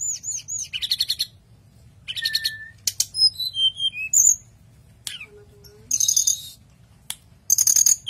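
Caged hill blue flycatcher singing: short, varied phrases of high whistled notes and quick trills, with a falling run of notes near the middle, separated by brief pauses.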